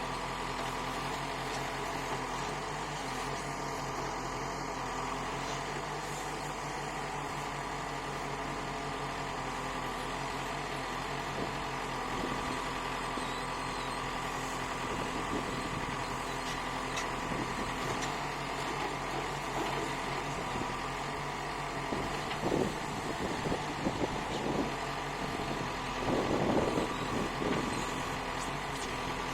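Kirloskar diesel engine of a Bobcat backhoe loader running steadily at idle, with several short, louder bursts over it in the last several seconds.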